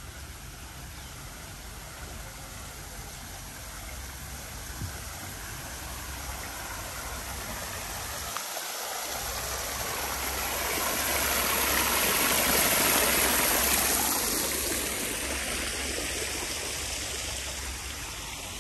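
Water spilling from a small stone fountain into its basin, a steady splashing that swells to its loudest about two-thirds of the way through and then fades.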